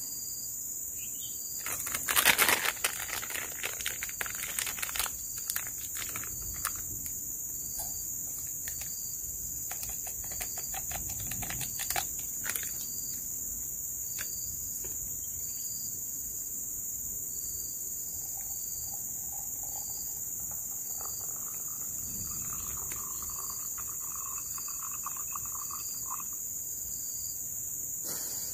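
Tropical forest insect chorus: a steady high-pitched drone with a short chirp repeating about once a second. Over it, crackling and rustling from handling things, loudest about two seconds in and dying away by about thirteen seconds.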